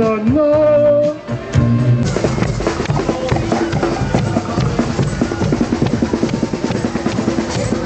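Music with a singing voice from a parade float's loudspeakers. About two seconds in it gives way to a marching band playing, a busy beat of snare and bass drums with brass.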